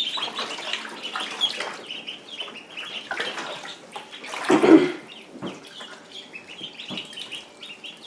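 Ducklings peeping in many short, high calls while they paddle and splash in shallow water in a plastic kiddie pool. About halfway through there is a brief, louder sound.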